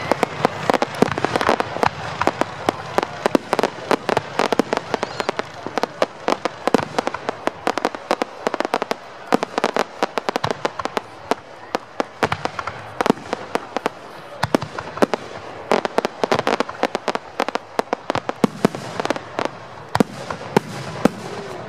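Aerial fireworks shells bursting overhead: many sharp bangs over a dense, rapid crackling from crackle stars, thinning out midway and growing dense again near the end.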